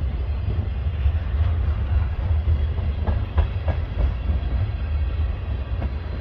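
Freight train's tank cars and intermodal well cars rolling past: a steady low rumble of steel wheels on the rails, with several sharp clicks as wheels cross rail joints in the second half.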